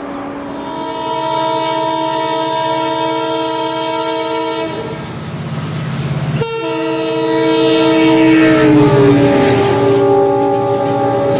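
EMD diesel locomotive's horn sounding a multi-note chord in two long blasts, the second stepping down in pitch about two-thirds of the way through. A low engine rumble and the clack of wheels run underneath.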